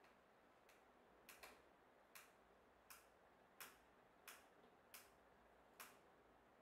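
Faint, evenly spaced clicks, about eight in all, roughly one every 0.7 seconds, from a hand screwdriver being turned to drive a screw through a U-bracket clamp into a pallet board.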